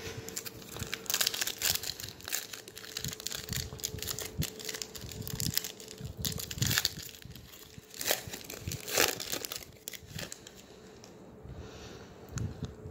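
A foil trading-card pack crinkling as it is torn open by hand, a fast irregular crackle that thins out near the end as the cards are drawn out.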